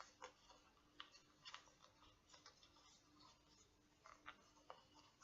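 Faint, irregular soft clicks and taps of tarot cards being handled and laid down one by one while a deck is sorted into order, with a low steady hum under them.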